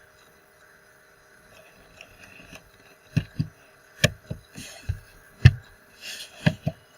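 An irregular run of dull knocks and thumps, several in about four seconds, beginning about three seconds in, over a faint steady hum.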